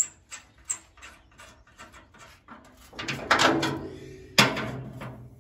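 Sharp clicks and metallic knocks from hands working on a straw reaper's steel flail drum and its clamps: three quick clicks in the first second, a denser clatter about three seconds in, and one sharp knock near the end.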